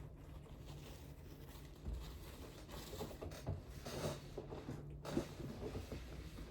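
Close-miked chewing and wet mouth sounds of a person eating: small clicks and smacks coming in clusters, busier through the second half, with the loudest one about five seconds in.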